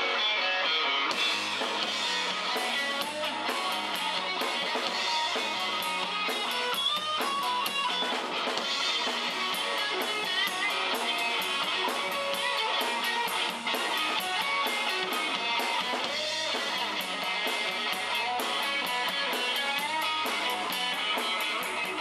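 Live rock band playing an instrumental passage: electric guitar from a Stratocaster-style guitar, picked over a drum kit, with the cymbals coming in about a second in and keeping a steady beat.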